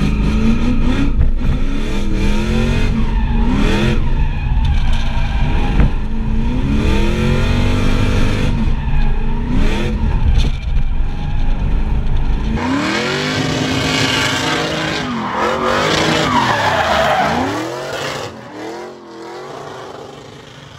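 2000 Pontiac Firebird Trans Am's LS1 V8 revving up and down again and again as the car drifts, heard from inside the cabin. About two thirds of the way through, the sound switches to the car heard from outside, engine revving over squealing tires, and fades out near the end.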